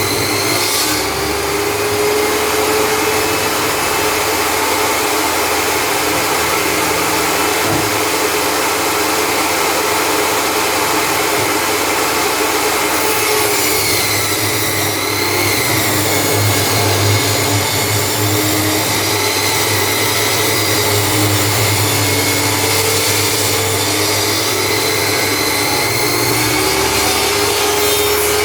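Electric table saw running steadily with a motor whine, its pitch sagging slightly a couple of times.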